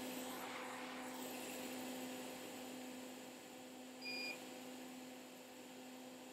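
Faint steady electrical hum, with one short high-pitched electronic beep about four seconds in from the soldering station as the micro pencil with its freshly changed tip comes into use.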